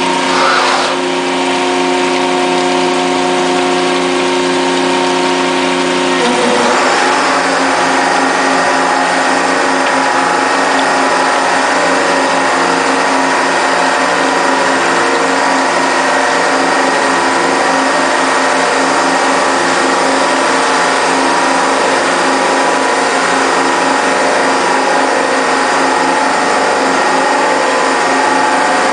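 Arter H40 rotary surface grinder running with a steady motor hum. About six seconds in, another drive on the machine comes in and the sound turns into a fuller, evenly pulsing whir with a steady high whine.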